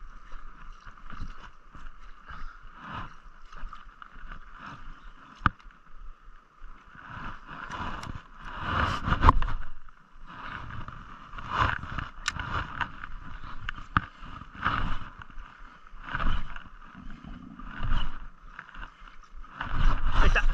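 Spinning reel being cranked in short spells as a popper lure is worked, with water lapping at a small boat's hull. The sound comes in repeated swells every second or two, loudest about eight to ten seconds in.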